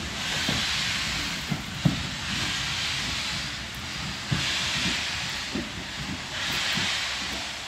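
BR Standard Class 4 tank engine No. 80104 pulling its train away, its steam exhaust heard as slow, even hissing beats about every two seconds, with scattered knocks from the coaches' wheels on the track.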